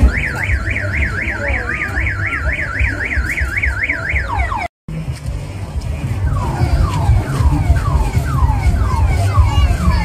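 Electronic alarm sounding: a fast warbling tone, about four wobbles a second, then, after a brief cut, a string of falling whoops about two a second. It has the cycling pattern of a car alarm. Heavy thudding bass from loud music runs under it throughout.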